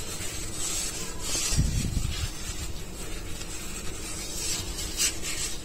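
Hands rubbing and peeling apart thin, oiled, lightly cooked homemade spring roll pastry sheets: a soft papery rustling that swells a few times, with a dull low bump about one and a half seconds in.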